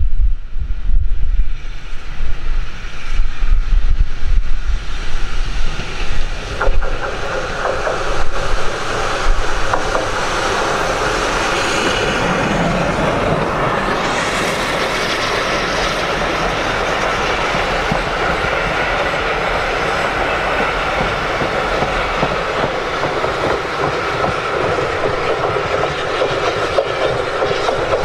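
Heritage steam train running on the line. Wind buffets the microphone at first, then from about six seconds in the clatter and rumble of the carriage wheels over the rail joints builds up and carries on steadily.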